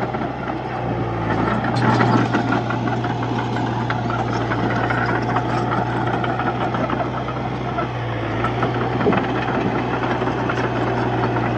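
Komatsu D31-P bulldozer's diesel engine running steadily under load, with a rapid metallic clatter over it.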